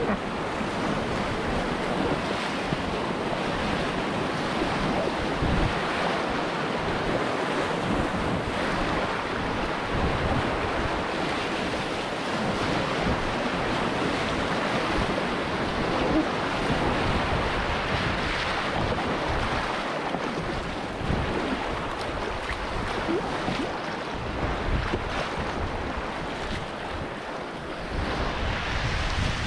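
River rapids rushing and splashing around and against a packraft running whitewater, a steady churning wash of water with wind buffeting the microphone.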